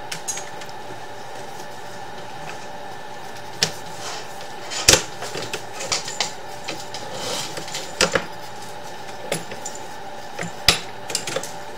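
Sewer inspection camera and its push cable being pulled back out of the drain line. Irregular sharp knocks and clicks, a few seconds apart, sound over a steady hum.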